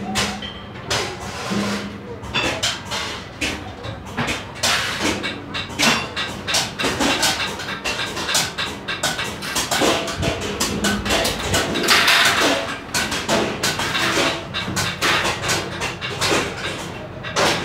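Busy workshop clatter: frequent, irregular knocks and clinks, with voices in the background.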